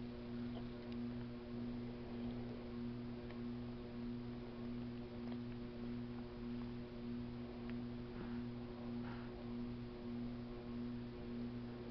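Steady low electrical hum made of several even tones, with a few faint clicks and scrapes of a metal fork in a plate of macaroni salad.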